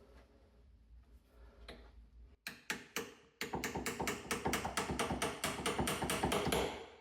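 Faint handling sounds, then from about two and a half seconds in a rapid, even series of sharp clicks, about five or six a second.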